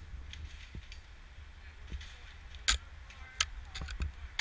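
A few sharp, irregular clicks and snaps over a low steady rumble. The clearest comes about two and a half seconds in, and several more follow close together near the end.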